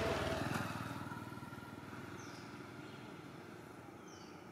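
A motor vehicle passing on the road, its engine loudest at the start and fading away over the next few seconds.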